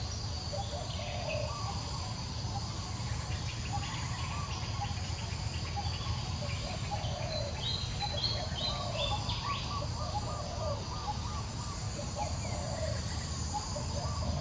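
Outdoor ambience of birds calling: many short repeated calls throughout, and a quick run of higher chirps stepping down in pitch about eight seconds in. Underneath are a steady insect drone and a low steady rumble.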